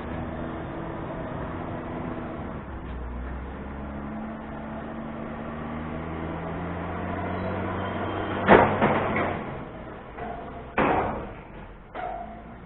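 A steady mechanical hum from a running engine or machine, then three sharp bangs with a short ringing tail, the first the loudest, the last the weakest.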